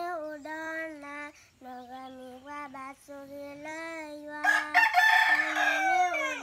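A young girl singing in held notes. About four and a half seconds in, a rooster crows over her for about two seconds, the loudest sound here.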